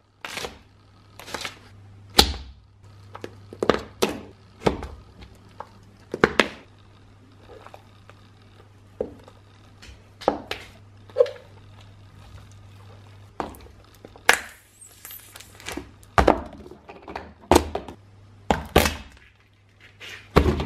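A high-heeled shoe stepping on and crushing a run of small crunchy and soft objects, among them a foil pinwheel, soft modelling clay and small plastic slime tubs. The result is irregular sharp cracks, crunches and thuds, one or two a second, over a steady low hum.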